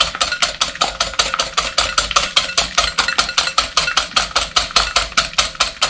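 Wire whisk beating egg whites by hand in a bowl, in fast even strokes about six or seven a second, whipping the whites toward firm peaks.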